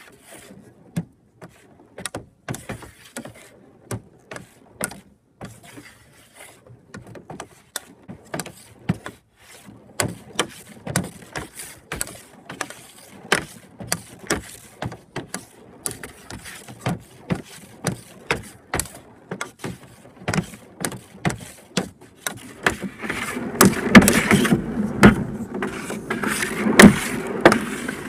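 A hockey stick blade tapping an orange street-hockey ball back and forth around pucks on a smooth shooting pad during a stickhandling drill: quick, uneven clicks, a few a second. The clicks grow louder and denser over the last few seconds, with a steady rumble rising under them.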